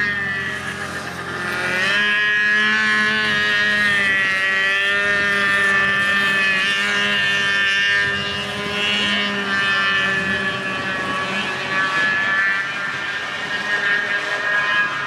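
Several 6x6 ATV engines running hard as the machines race, their pitch rising and falling with throttle.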